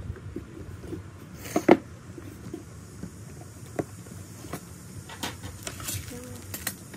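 Handling sounds of a hard gift case: a loud knock about a second and a half in, then lighter taps and clicks as the case is lifted and its lid opened.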